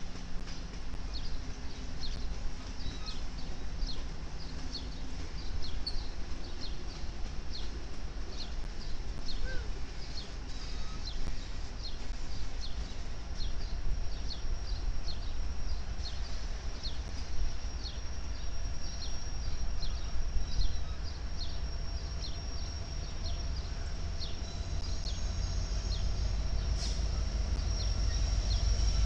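Union Pacific diesel-electric freight locomotives rolling slowly past: a steady low rumble under a quick, even run of short high clicks, about two to three a second. A thin high whine comes in and the rumble grows louder near the end as another train approaches.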